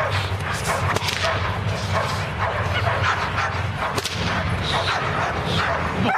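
German Shepherd barking repeatedly as it lunges on its leash, worked up during bite-work training, with sharp cracks mixed in; the loudest crack comes about four seconds in. A steady low rumble runs underneath.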